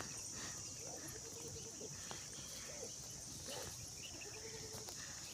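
Steady high-pitched drone of insects, with a few faint short calls in the background.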